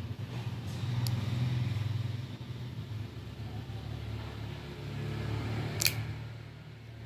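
CRKT M16-10KZ folding knife: a faint click about a second in as the blade is closed, then one sharp, loud click near the end as the blade is flipped open and locks. Under it runs a steady low rumble.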